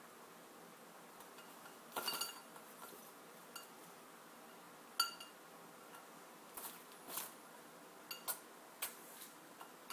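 Sun conure bathing in a ceramic bowl of water: scattered short splashes from its flapping wings, some with a brief clink off the bowl, the loudest about halfway through.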